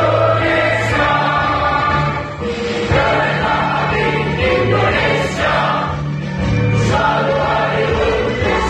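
A large group of people singing together in unison, choir-like, in a room.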